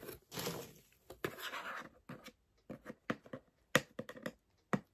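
Hands handling a small cardboard box: a soft rustle and scrape of fingers on the card, then a run of light, sharp taps and clicks.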